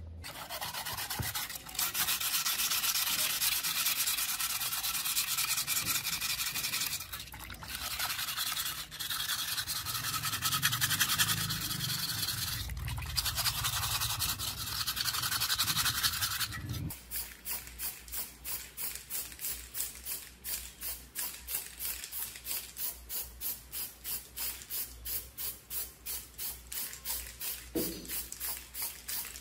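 Sandpaper being rubbed over a small metal blower housing and its filled spout, wet: a dense scraping hiss broken by short pauses, which settles after about seventeen seconds into even back-and-forth strokes, about two to three a second.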